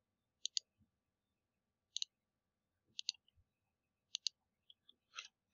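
Computer mouse button clicking about once a second, five times, each click a quick press-and-release double tick, as notch points are picked on screen in CAD software.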